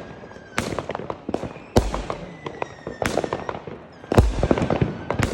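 Fireworks going off: about four loud booms, each followed by a spatter of crackling pops.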